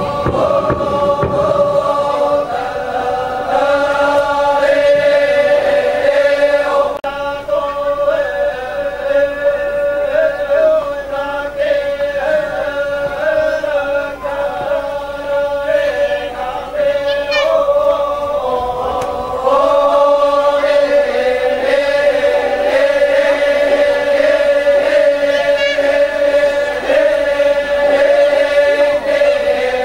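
A group of voices chanting together, holding one steady droning note throughout while other voices move in pitch above it.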